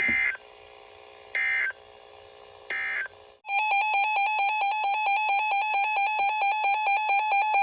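Emergency Alert System broadcast signals: three short bursts of screeching digital SAME data tones about a second and a half apart, then a loud, rapidly pulsing electronic alert tone that starts about three and a half seconds in and holds.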